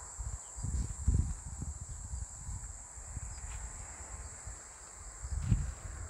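Steady high-pitched insect trill, with a few low thumps mixed in, the strongest about a second in and again near the end.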